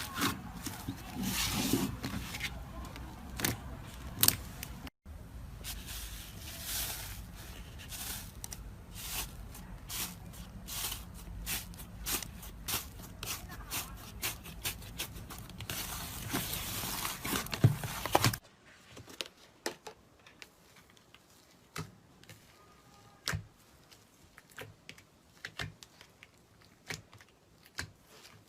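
Slime being squeezed and stretched by hand: a dense stream of small crackles and pops. About eighteen seconds in, the background hiss drops away and the pops become sparser and quieter.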